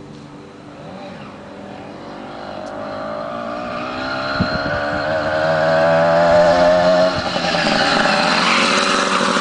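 Two-stroke motorized bicycle engine with a tuned expansion-chamber pipe, running hard as the bike approaches. Its buzz grows steadily louder, loudest in the last few seconds.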